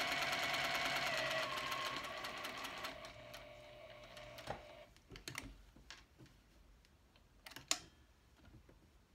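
Juki sewing machine running fast, stitching a seam through the mask's fabric layers, then slowing and stopping about five seconds in. A few light clicks follow.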